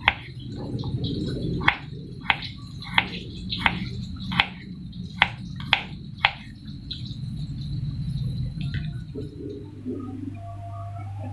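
Kitchen knife slicing garlic cloves on a wooden cutting board: about nine sharp taps of the blade on the board, roughly one every half second to second, stopping after about six and a half seconds. A low steady hum runs underneath.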